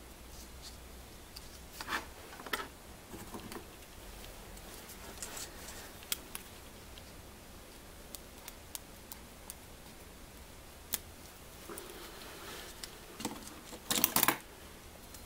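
Handling noise from wrapping Teflon tape onto the threads of a small brass hose-barb fitting: scattered small clicks and rustles, with a snip of scissors cutting the tape. A louder short burst of rustling and clicking comes near the end.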